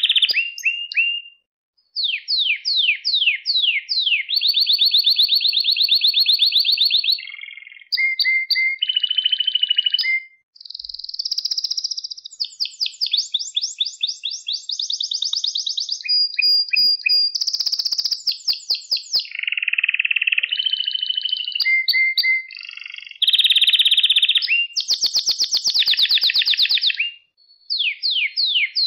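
Male domestic canary singing a long song: runs of fast repeated down-sweeping notes alternate with buzzy rolls and trills, broken by short pauses near the start, about ten seconds in and near the end.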